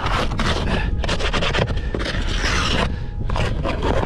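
Hand scraper scraping caked slush and ice off the bottom of a plastic toboggan in quick repeated strokes. The build-up comes from lake slush and makes the toboggan drag, so it has to be cleaned off every few steps.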